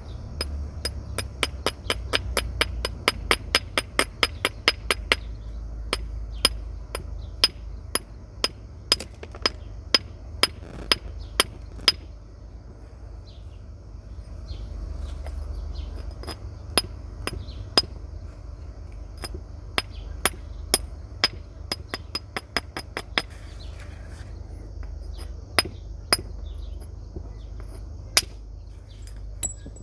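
Flint being knapped with natural percussors, giving sharp, glassy clicking strikes. A quick run of light taps over the first few seconds gives way to slower, spaced single blows, with a low rumble underneath.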